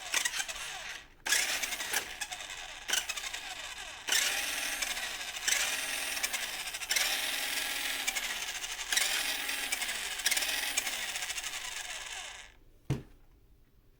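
Electric motor and gearbox of a toy RC monster truck whirring in repeated spurts as the throttle is worked, each whine rising and then falling in pitch. It stops near the end, followed by a single click.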